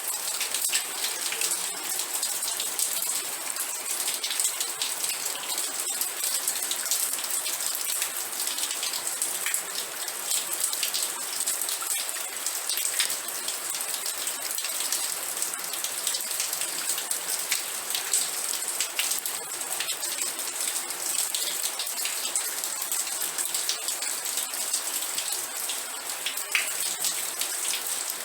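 Steady rain falling, a dense even hiss with many small drop ticks on a surface.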